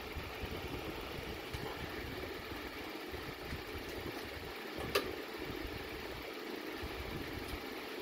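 Steady low background noise with one sharp click about five seconds in, a photo fridge magnet knocking against the metal display board.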